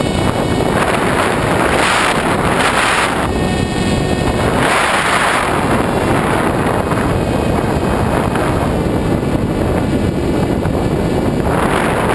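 Wind rushing hard over the onboard camera's microphone of a 1.8 m foam FPV RC glider in flight, with a whine that comes and goes through it.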